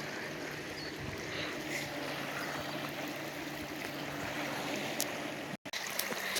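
Steady rush of flowing stream water, with a brief cut-out about five and a half seconds in.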